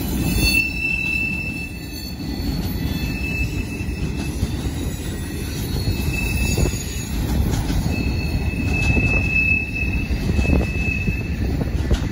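Freight train boxcars rolling past with a steady low rumble of wheels on rail. A thin, high wheel squeal comes and goes several times, and there are a couple of short clunks.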